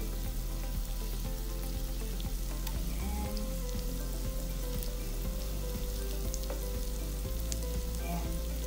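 Butter sizzling and crackling steadily as it melts and foams in a hot frying pan, pushed around with a wooden utensil that makes occasional small ticks against the pan.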